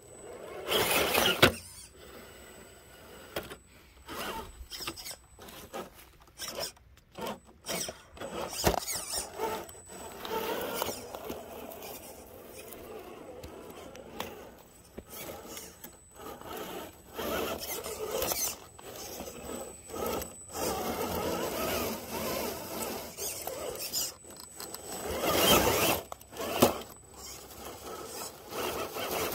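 Scale RC rock crawler's electric motor and geared drivetrain whining in stop-start bursts as it climbs over a log and rocks, with its tyres scraping and scrabbling on stone.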